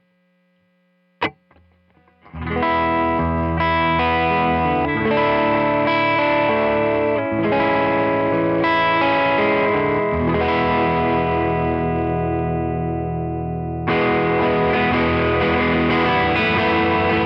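2003 Gibson '58 Historic Les Paul electric guitar through a Tone King Imperial MK II amp on a crunch setting, strumming chords with a light overdrive. Amp hum and a sharp click about a second in, then playing starts about two seconds in; a chord is left to ring and fade before a fresh strum near the end.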